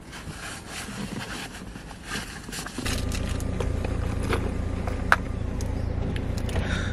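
Light scattered clicks and handling noise, then about three seconds in a steady low rumble of a running vehicle sets in, with a sharp click a couple of seconds later.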